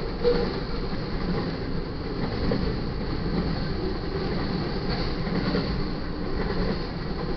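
Freight train cars rolling past at speed: a steady rumble of steel wheels on rail with faint clicks over the rail joints.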